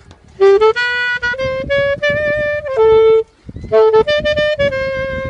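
Solo saxophone playing a slow melody of short held notes, with a brief breath pause about three seconds in.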